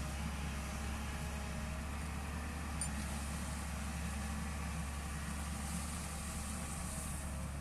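Tata Hitachi excavator's diesel engine running steadily at a low, even drone.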